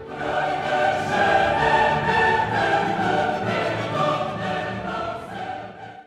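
Background music: a choir singing full, sustained chords with orchestral backing. It stops abruptly at the very end.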